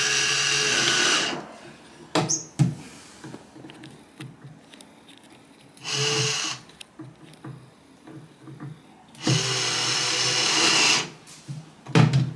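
Cordless drill driving screws into a wooden drawer front, fitting the bedside table's handle: three runs of the motor, one stopping about a second in, a short one about six seconds in, and a longer one of nearly two seconds about nine seconds in. A few clicks and knocks fall between the runs.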